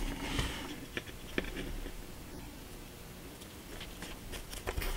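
Faint scratchy brushing as a paintbrush works powdered pastel chalk onto a small plastic model piece, with a couple of light taps about a second in.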